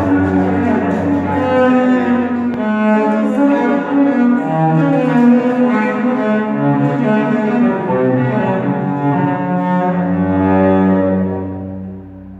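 Cello playing a slow melody in long bowed notes. About ten seconds in it settles on a long low note that fades away near the end.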